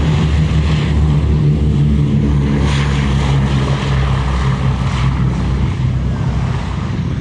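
Boeing B-17 Flying Fortress's four Wright Cyclone radial engines at full takeoff power during the takeoff roll: a loud, steady propeller drone that eases slightly near the end as the bomber pulls away.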